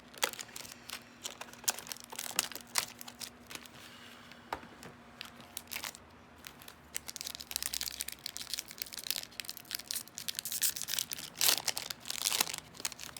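Yu-Gi-Oh! Maximum Gold booster pack wrapper crinkling and being torn open, with cards handled. The crackling comes in bursts, thickest about seven seconds in and again near the end.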